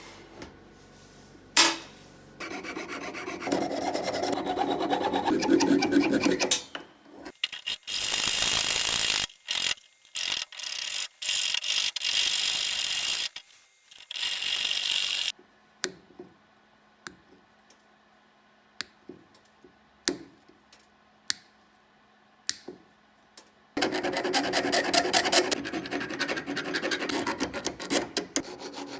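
Hand rasping and rubbing on silver metalwork in several long stretches of a few seconds each, with short pauses between them. A sharp click comes about a second and a half in, and a quieter stretch in the middle holds scattered light taps and clicks.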